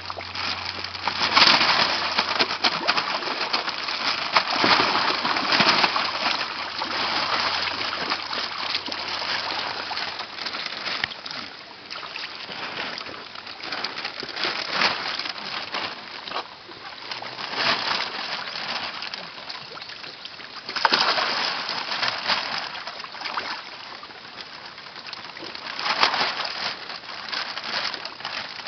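Water splashing and sloshing in a koi pond during a harvest, coming in several louder surges with quieter spells between.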